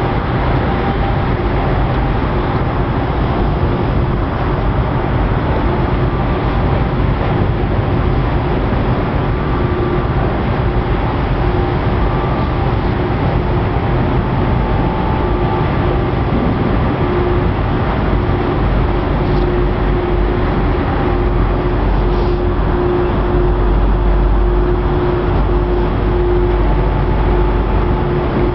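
Towboat diesel engines running steadily under way: a low drone carrying a constant hum. The deepest rumble grows stronger about two-thirds of the way through.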